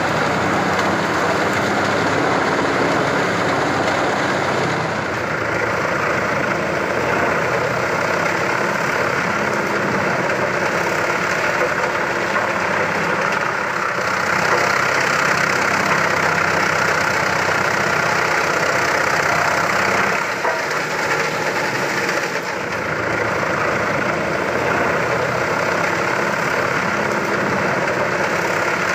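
Large mobile wood chipper running steadily at work under heavy engine power, with a brief dip in level about two-thirds of the way through.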